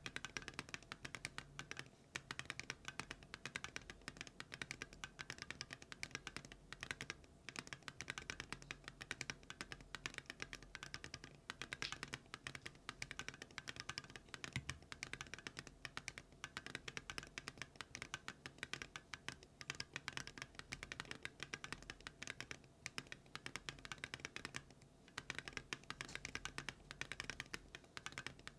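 Typing on a Keynetix Kelvin mechanical keyboard fitted with Geon Raw Zero switches and Awekeys Viking metal keycaps: a steady run of clacky keystrokes, with short pauses about a quarter of the way in and near the end.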